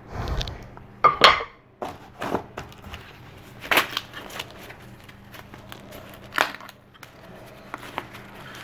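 Packaging rustling and crinkling as wooden bar stool parts are unpacked, with several short knocks and scrapes spaced out over the few seconds.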